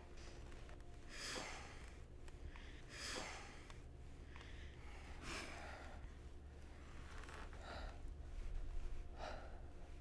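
A person breathing audibly: five slow, hissy breaths or sighs about two seconds apart, the first three strongest, over a faint steady low hum.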